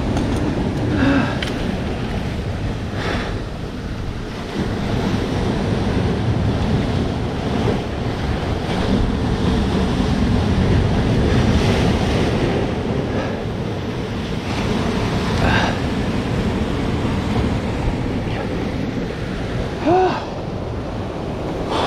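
Surf breaking and washing over rocks, with wind buffeting the microphone. A short pitched sound rises and falls about twenty seconds in.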